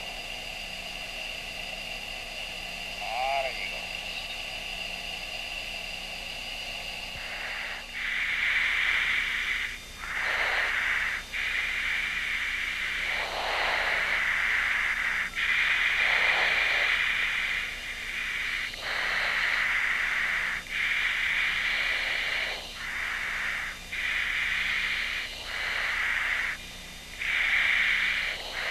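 Steady hiss and hum in the cockpit of a taxiing F-15, with a brief warbling tone about three seconds in. From about eight seconds in, a louder rushing hiss cuts in and out abruptly every second or two.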